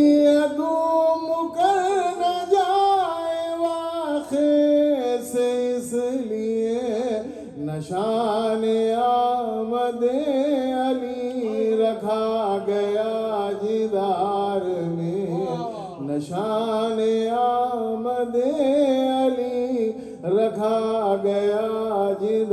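A man singing lines of Urdu devotional poetry in a melodic, chanted style, in long held notes that waver and slide.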